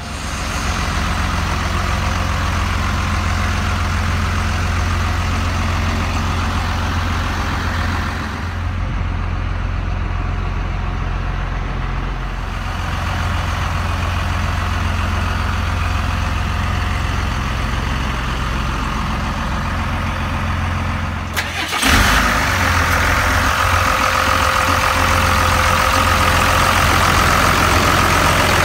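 Cummins 5.9 L diesel truck engine idling steadily. About three-quarters of the way through, a sharp knock is heard, and after it the idle is louder and closer, with a steady whine over it.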